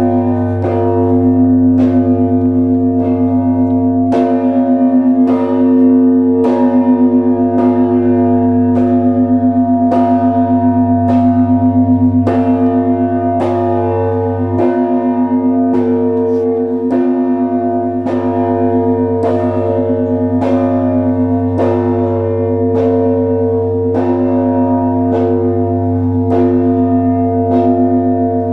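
Russian Orthodox church bells of the Trinity Lavra belfry ringing together: bells struck in a steady run, about one and a half strokes a second, each stroke ringing on over a deep, sustained hum of larger bells.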